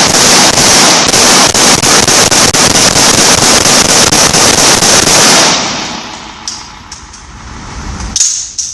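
Machine gun firing one long automatic burst of rapid shots for about five seconds, then stopping, with its echo dying away. A few sharp bangs or clacks follow near the end.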